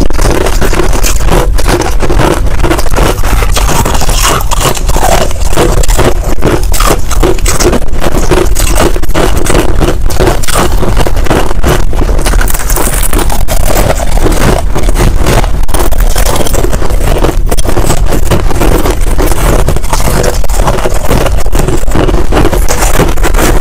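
Finely crushed ice being chewed close to a lapel microphone: a dense, unbroken run of crisp crunches and crackles, with a spoon scraping through the ice.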